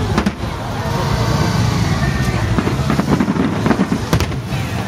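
Aerial firework shells bursting in the sky: several sharp bangs, a few of them close together near the end, over a steady background rumble and crowd chatter.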